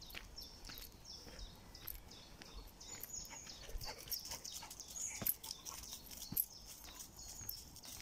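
Footsteps crunching on a leaf-strewn woodland dirt path, irregular soft knocks with a sharper one about five seconds in and another past six seconds, over faint high chirping.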